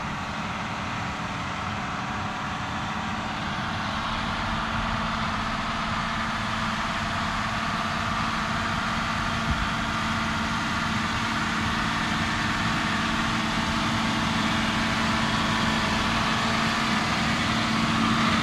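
Tractor engine running steadily as the tractor pulls a manure tanker across the field, growing gradually louder as it comes closer.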